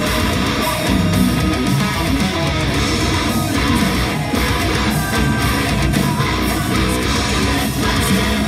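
Acacia Romulus electric guitar played through a Line 6 Helix amp modeller in a heavy metal style, a steady, dense stream of riffing with no breaks.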